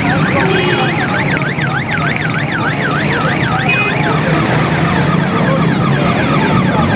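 Electronic vehicle siren yelping, its pitch sweeping rapidly up and down about three times a second; after about four seconds it turns fainter and quicker. A steady low hum runs underneath.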